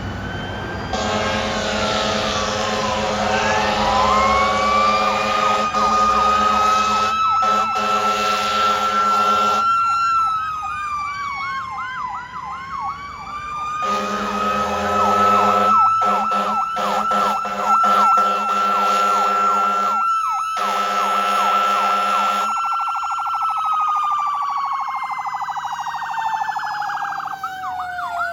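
Fire engine responding with its siren wailing up and down and breaking into a fast yelp, its air horn blaring over it in three blasts: a long one from about a second in, another around fourteen seconds, and a short one just after. Near the end the horn stops and the siren winds down in pitch.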